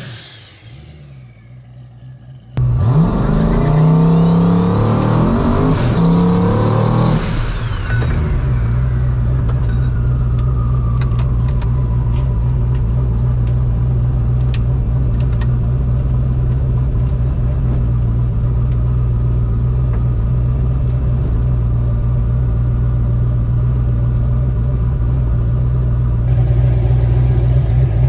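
Turbocharged 5.3 LS V8 accelerating hard, its revs climbing and dropping back at gear changes for several seconds. It then settles into a steady low drone as a high whine falls away.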